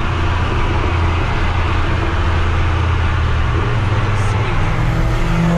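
Steady engine drone with tyre and wind noise, heard from inside a car's cabin cruising at highway speed, with a turbocharged Mazdaspeed3 running alongside.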